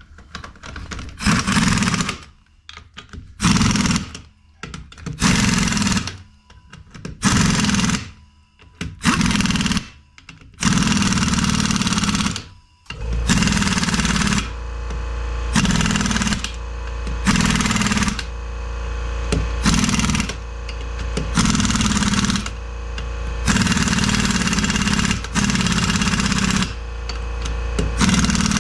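Impact wrench running lug nuts onto the wheel studs, not yet torqued. It fires in about six short bursts, then hammers almost without a break, pulsing, through the second half.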